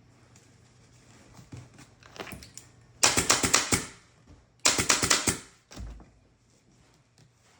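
Two loud bursts of rapid crackling clicks, each under a second long, from work on a dining chair's upholstery, with lighter scattered clicks before them and a dull thud just after.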